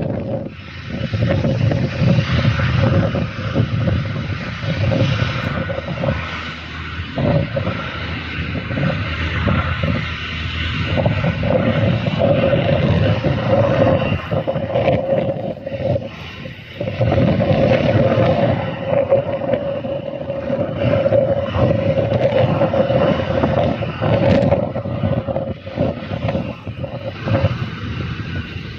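Offshore helicopter's engines and rotors running as it taxis, a steady drone under rough noise that rises and falls, with wind buffeting the microphone.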